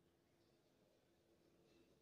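Near silence: faint room tone with a few soft scratches of chalk writing on a blackboard.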